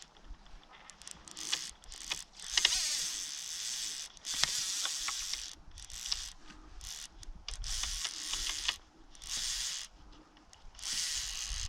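Fishing reel being wound in stop-start bursts, its gears and ratchet giving a rasping clicking with short pauses between the turns.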